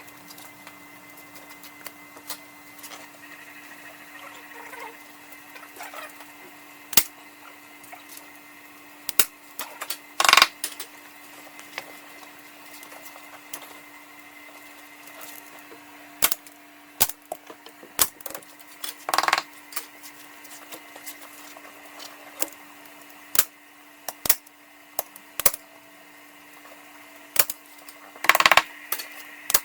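Upholstery work with a heavy-duty staple gun and an upholstery hammer: irregular sharp clicks and snaps of staples being driven, a second or several apart. Three louder, longer knocks come about a third of the way in, two-thirds of the way in and near the end, over a faint steady hum.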